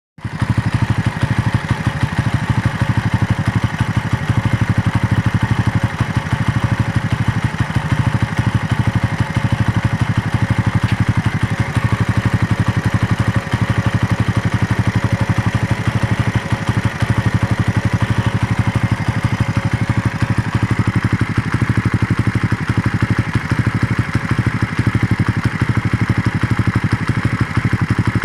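Suzuki Raider motorcycle engine idling steadily with a rapid, even beat, hot after a long ride.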